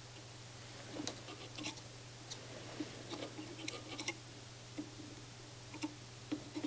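Faint, irregular small clicks and taps from hands handling tools and parts on the receiver's circuit board, over a steady low hum.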